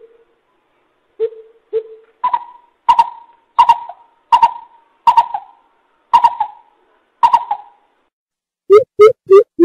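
Coucal (bubut) giving its deep hooting call: a few single hoots, then a slow series of about eight booming notes roughly 0.7 s apart, then near the end a quicker run of hoots about three a second.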